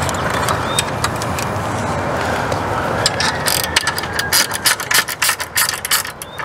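Wind rumbling on the microphone, then from about three seconds in a quick, uneven run of metallic clicks from the spring-loaded roller end head of an A&E 8500 manual patio awning as it is worked by hand.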